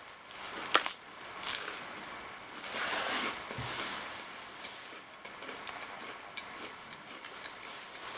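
A crisp puffed rice cake bitten and chewed close to the microphone. There is a sharp snap of a bite just under a second in and another soon after, then a longer crunch of chewing around three seconds, followed by small crackles.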